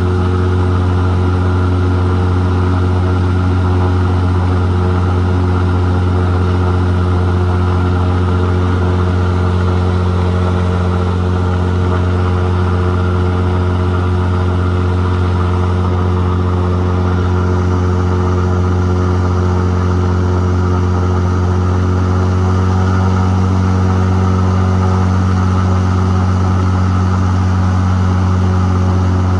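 Supercharged 480 airboat engine and propeller running under way, a loud steady drone whose pitch rises slightly about three-quarters through.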